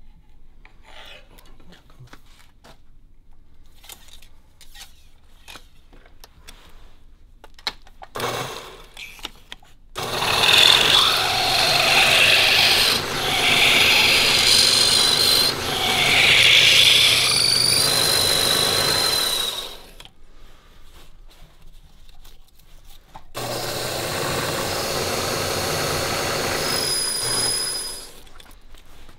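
Small motor-driven lathe spinning a piece of bamboo rod while an abrasive block is held against it, a loud rasping whir for about ten seconds. After a short pause the lathe runs again for about five seconds, steadier, with a thin high whine near the end. Quiet taps of bamboo being handled on a workbench come first.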